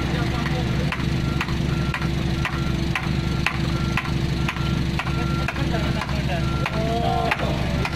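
Komatsu PC45 mini excavator's diesel engine running steadily, with a warning beeper sounding short beeps about every half second and regular clicking.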